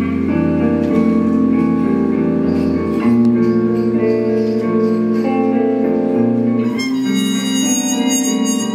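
Electric guitar and trumpet improvising in held, overlapping notes over a looped, sustained low drone; a brighter, higher tone comes in about seven seconds in.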